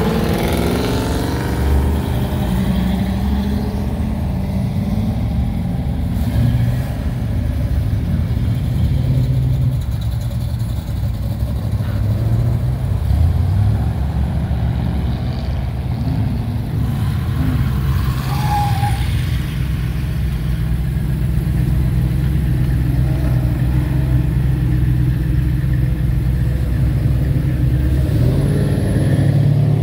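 Engines of classic American cars rumbling at low speed as they drive past one after another. Engine pitch rises as a car accelerates near the start and again near the end.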